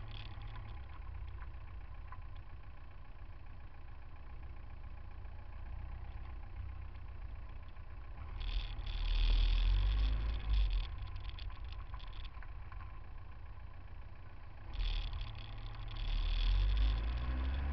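Low, steady rumble of slow city traffic and idling engines, picked up by a camera on a car's front bumper. Two louder spells of rumble and hiss come about halfway through and near the end.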